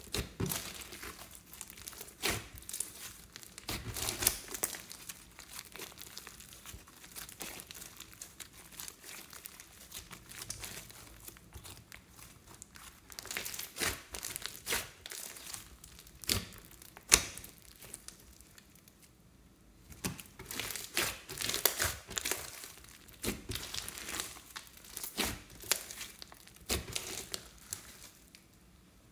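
Hands kneading, squeezing and stretching a large mass of fluffy pink slime dotted with foam beads: a dense run of sticky crackles and pops, with a quieter spell about two-thirds of the way through.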